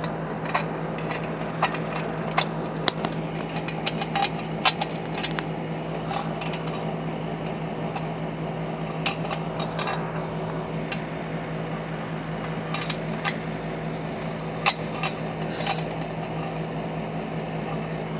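A steady machine hum runs throughout, with scattered light clicks and taps as concrete anchors are handled and fitted through the mounting holes of a stainless steel dog waterer.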